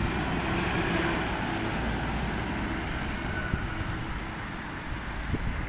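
A Stagecoach service bus driving past and pulling away, its engine and tyre noise easing off.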